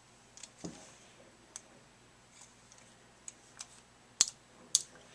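Scattered sharp clicks, about a dozen at irregular spacing, from the electronic paintball marker being worked by hand, the two loudest near the end.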